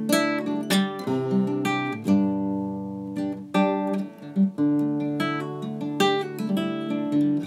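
Acoustic guitar being played, a run of chords and picked notes with sharp attacks several times a second, without singing.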